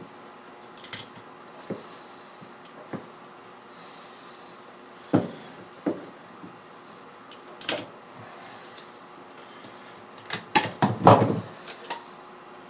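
Scissors working through a thick silicone radiator hose: irregular snips, clicks and handling knocks, with a denser, louder run of knocks and rubbing near the end as the cut finishes.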